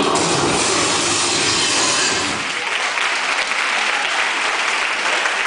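Audience applauding as the salsa music ends at the very start; the applause is fuller for about the first two seconds, then settles into steady clapping.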